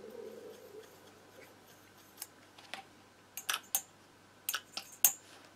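Scattered sharp clicks and taps of small hard objects handled on a workbench, one at a time and in quick clusters of two to four, the loudest near the end.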